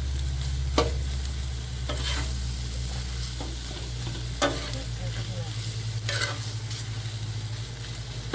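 Scrambled eggs and leftovers sizzling on a Blackstone griddle, with a metal utensil scraping and tapping the griddle top a few times while the food is stirred and folded. A steady low hum runs underneath.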